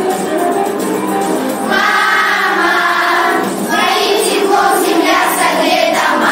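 A group of children singing together, with a short break between phrases about a second and a half in.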